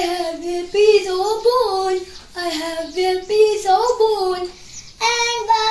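A young girl singing in short phrases of a second or two, with held, steady notes and brief breaks between phrases.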